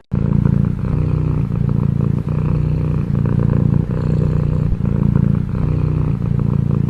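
A domestic cat purring loud and close, a steady low rumble that dips briefly about every three-quarters of a second as the cat breathes.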